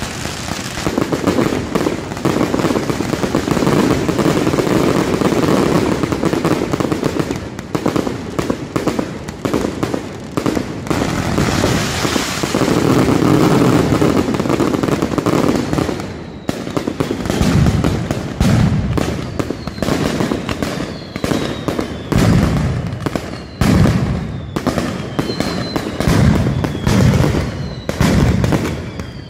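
Mascletà firecrackers going off: a dense, continuous crackle for about the first sixteen seconds, then separate heavy booms about one to two seconds apart. Faint falling whistles run through the last third.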